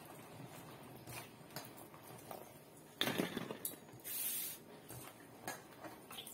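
Hands squeezing and mashing a soft, wet jujube pickle mixture in a steel bowl, with scattered squelches and small clicks. There is a louder squelch or knock against the bowl about three seconds in and a brief hiss just after four seconds.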